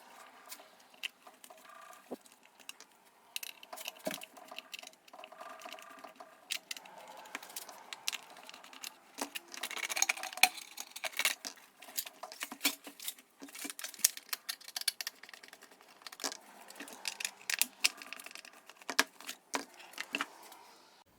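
Irregular small clicks, taps and scrapes of plastic and metal parts and hand tools as a Homelite string trimmer is taken apart on the bench, busiest about halfway through.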